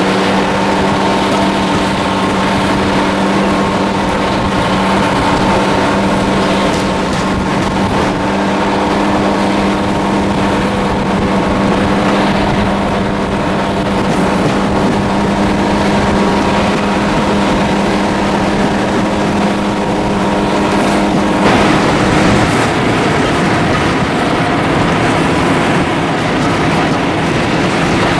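Diesel locomotive engine running at a steady note. About 21 seconds in, the steady note breaks up and the sound turns rougher.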